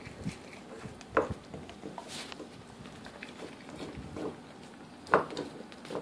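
English cream golden retriever puppy licking and gnawing a raw marrow bone: small wet licks and clicks of teeth and bone, with louder sharp clicks about a second in and again near five seconds.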